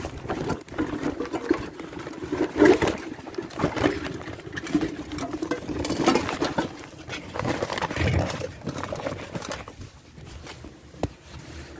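Rustling and rubbing of a filled sack brushing against the phone microphone, with uneven knocks of handling, muffled and close.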